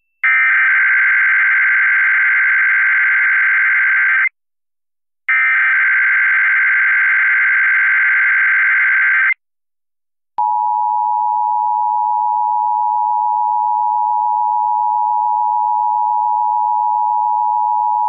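Emergency Alert System Required Monthly Test over FM radio: two digital SAME header data bursts of about four seconds each, a second apart, then the steady two-tone EAS attention signal starting about ten seconds in.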